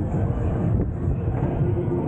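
Moser Rides Sidewinder swinging-arm ride in motion: air rushing over the onboard microphone over a steady low rumble as the seat swings and spins through the air.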